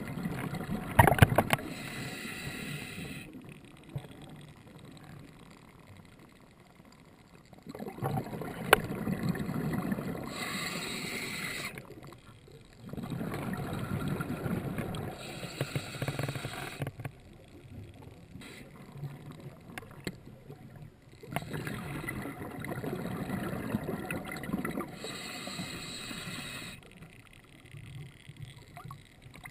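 Scuba diver breathing through a regulator underwater: bursts of exhaled bubbles lasting a few seconds, about four times, with quieter stretches between. A couple of sharp knocks, the loudest about a second in.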